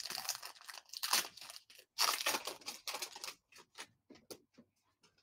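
Foil wrapper of a Court Kings basketball card pack crinkling and tearing as it is handled and ripped open: a run of noisy rips and crackles over the first three seconds or so, then a few fainter crackles.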